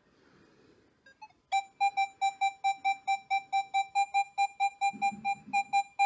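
Nokta Makro Legend metal detector's target tone: a fast run of same-pitched beeps, about five a second, starting about a second and a half in, as a US $5 gold coin is passed over the coil in Field mode. The coin reads 37–38 on the target ID.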